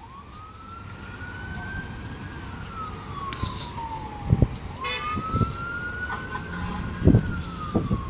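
Emergency vehicle siren on a slow wail, its pitch rising and falling twice. A few low thumps are heard over a rumbling background.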